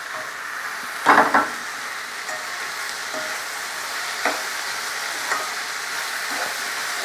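Onions and ginger-garlic paste sizzling in hot oil in a pan while being stirred, with a louder scraping clatter about a second in and a few light ticks of the spoon against the pan later.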